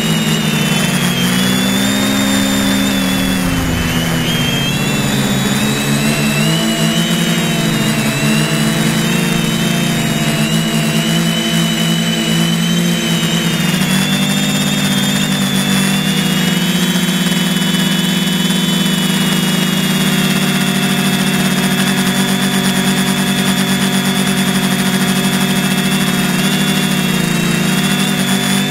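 Drone's electric motors and propellers running in flight, heard close up from the onboard camera: a steady buzzing whine whose pitch rises and falls as the throttle changes.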